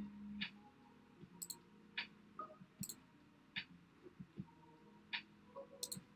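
Faint, irregular computer clicks, about one or two a second, as the app in the simulator is clicked through.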